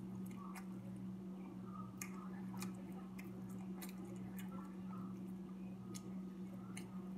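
Close-up chewing of fast food: soft, wet, irregular clicks and smacks, a few a second, over a steady low hum.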